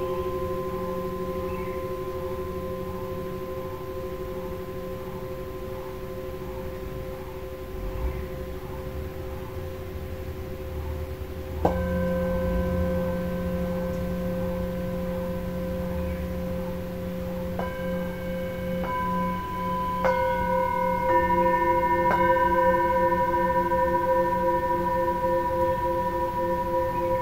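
Several Himalayan singing bowls struck with felt mallets and left to ring, their long tones layered and wavering in a slow pulse. One new strike comes about halfway through, then a quick run of further strikes a few seconds later, each adding a new pitch to the ringing.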